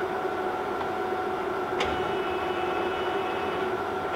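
A Summit 32 x 120 engine lathe running under power with a steady mechanical hum and whine, with a single click a little under two seconds in.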